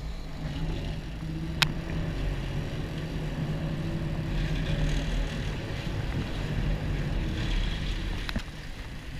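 Sportfishing boat's engines running at a steady pitch under wind and water noise, dropping away about eight seconds in. A single sharp click about one and a half seconds in.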